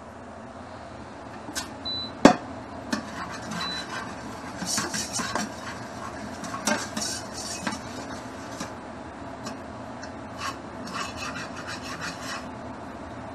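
Long cooking chopsticks scraping and clacking around the inside of a wok on an induction hob, in clusters of strokes from about four seconds in until near the end. Before that come two short high beeps from the hob's controls and one sharp clack.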